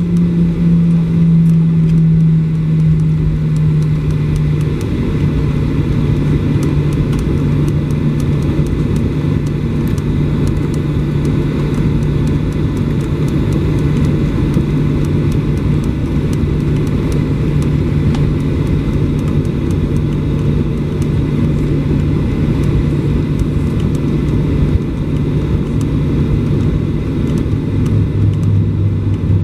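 Boeing 737-800's CFM56-7B jet engines at taxi power, heard inside the cabin over the wing: a steady hum over a dense low rumble. The hum drops slightly in pitch about five seconds in, and a lower tone joins near the end.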